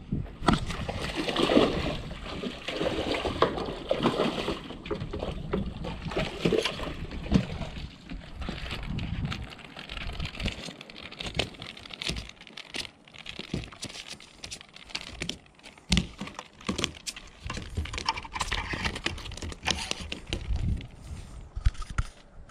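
A small snook hooked on a swimbait, splashing at the water's surface as it is reeled in. After that come scattered sharp knocks and slaps as it flops about on the dock boards.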